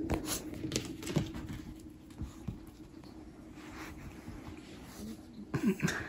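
A small dog, a Pomeranian, moving about and getting up onto an upholstered armchair: light patter and a few soft clicks of paws, otherwise quiet.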